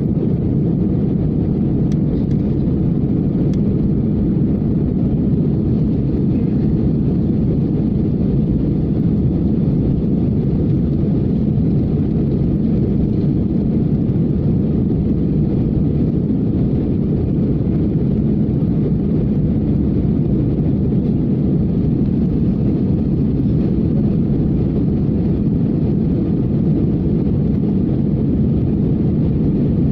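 Steady, loud rumble of jet engines and airflow heard inside an airliner's passenger cabin, with no change in pitch or level.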